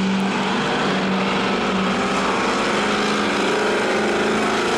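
Drag-racing engines at wide-open throttle as an old Chevy C10 pickup and a Camaro run down the strip after launch, a steady, loud engine drone.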